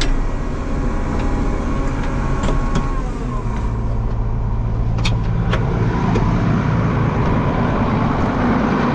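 Tractor engine running steadily while driving across a field: a deep, even hum that gets a little fuller about halfway through, with a few faint clicks and rattles.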